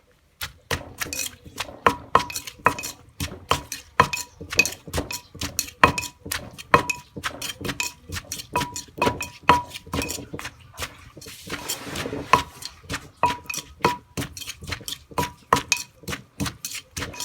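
Pestle pounding hog plum salad in a mortar, a steady rhythm of about two to three strokes a second, each with a short clink. The pounding gives way to a brief scraping mix about two-thirds through, then starts again.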